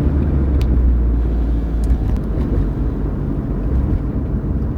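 A car being driven: a steady low rumble of road and engine noise, with a few faint clicks.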